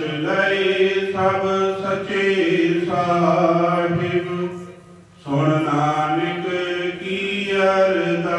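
Sikh kirtan: voices singing Gurbani in long held notes over a steady drone. They break off briefly about four seconds in, then resume.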